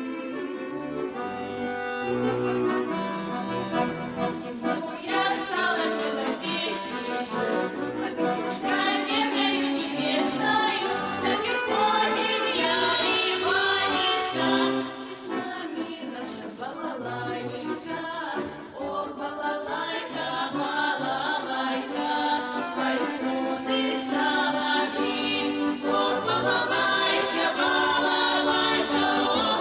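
Russian folk music: an accordion plays, and a group of voices sings along from about five seconds in.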